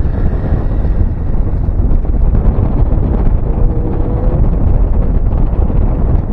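Steady, heavy wind buffeting on the microphone of a motorcycle rider moving at road speed, a dense low rumble that covers any engine sound.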